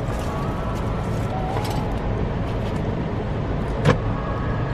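Steady low rumble of a car idling, heard from inside the cabin, with faint rustling of a plastic utensil wrapper and a single sharp click about four seconds in.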